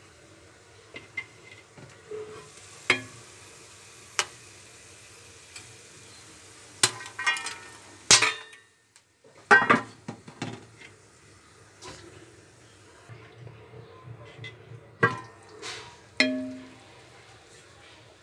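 Scattered knocks, clinks and scrapes of a spoon against a metal karai as popcorn is stirred and handled, with one short ringing clang near the end.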